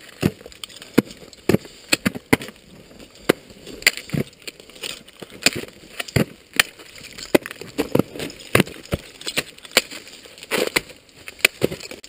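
Ice axe picks being swung into frozen waterfall ice, a series of sharp strikes about one or two a second, with ice chipping and breaking off.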